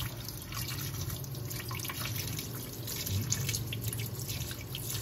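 Kitchen tap running into a stainless steel sink, the stream splashing and dripping over razor clams as hands rinse the grit out of them.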